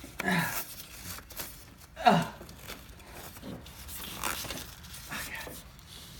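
Scattered clicks and rustles of hands handling wiring and plastic parts on an ATV. Two short voice sounds fall in pitch, one just after the start and one about two seconds in.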